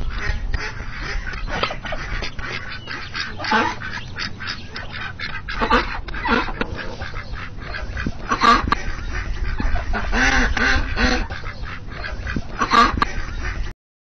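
Duck quacking, a series of separate quacks a second or two apart, over a low steady rumble. The sound cuts off abruptly just before the end.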